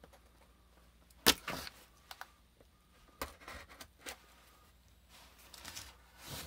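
A cardboard shipping box being handled and turned over: a sharp knock about a second in, then light scrapes and taps, and a serrated folding knife slicing into the cardboard near the end.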